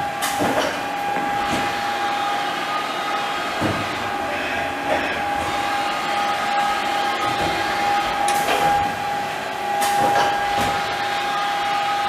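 A powered-up Haas SL-30 CNC turning center idling: a steady machine hum with a constant whine over it, and a few brief knocks.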